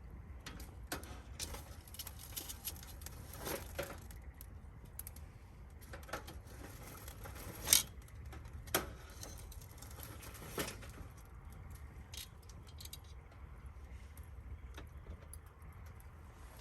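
Firewood burning in a fire pit, crackling with irregular sharp pops; the loudest pop comes about eight seconds in.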